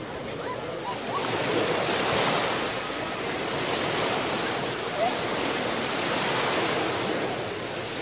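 Ocean surf breaking and washing up a beach, a steady rush that swells in slow surges every couple of seconds. A few faint short calls sound above it, one near the start and one about halfway through.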